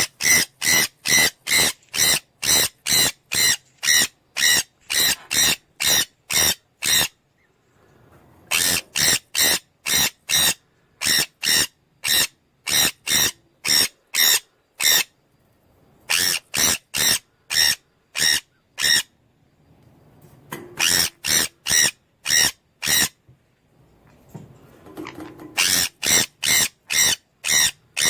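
Pyrrhura conure giving harsh, screechy calls in rapid series, about two a second. The calls come in bouts of several seconds, broken by short pauses.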